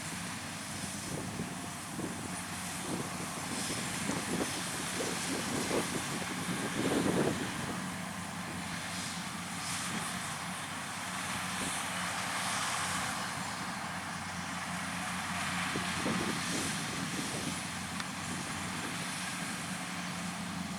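Kubota DC-70 combine harvester's diesel engine running steadily as it works the rice field, with scattered short knocks during the first several seconds.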